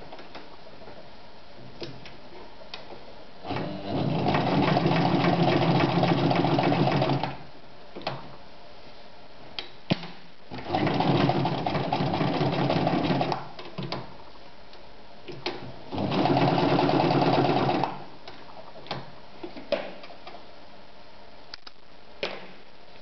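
Meister 110 sewing machine stitching through leather in three runs of a few seconds each, the first the longest, with short clicks and knocks of handling between runs.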